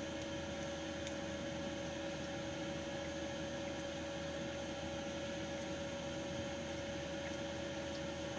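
Steady mechanical hum inside a truck cab, with two steady tones over an even hiss and no change throughout.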